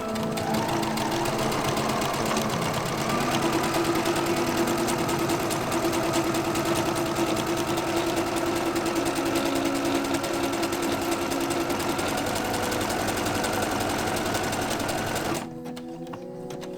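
Domestic sewing machine stitching in one steady continuous run, stopping abruptly near the end.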